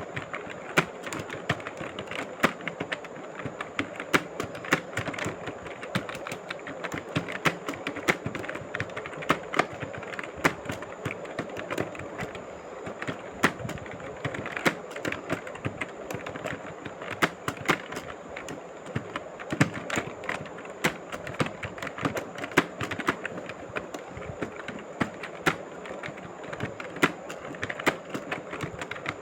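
Typing on a mobile phone's touchscreen keyboard: a quick, irregular stream of key taps, several a second, over steady background noise.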